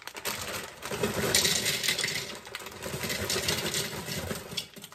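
Dry extra-wide egg noodles poured from a bag into a glass coffee-pot carafe, a continuous clatter of hard pasta pieces rattling against the glass and each other, busiest about a second in.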